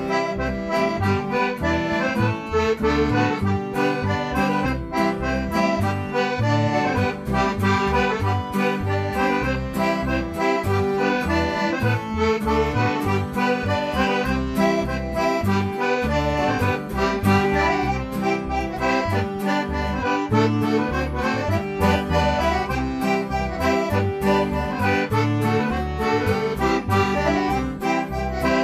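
Traditional dance tune led by a Galanti piano accordion, with acoustic guitar and electric bass accompaniment, playing steadily at a lively dance rhythm.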